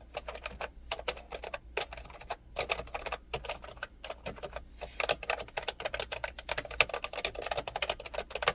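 Computer keyboard being typed on quickly, a rapid irregular run of key clicks with short pauses between bursts.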